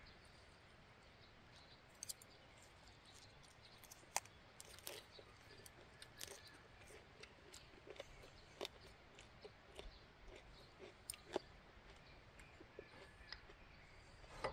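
Faint, scattered clicks of chopsticks and a spoon against ceramic bowls and plates, with quiet chewing, over a low steady background.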